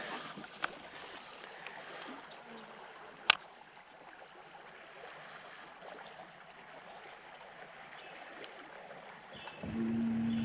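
Quiet running water of a river current around a boat. A single sharp click about three seconds in, and near the end a steady motor hum starts up and holds one pitch.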